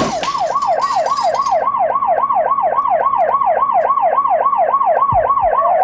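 Emergency vehicle siren in a fast yelp, sweeping up and down about four times a second. Just before the end it switches to a slower rising wail.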